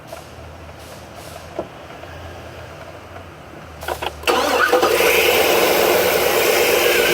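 Cadillac Escalade ESV's 6.2 L V8 cranking briefly, catching about four seconds in, then running steadily and loudly. The engine has a misfire on cylinder 7, which the mechanic traces to a bad AFM lifter.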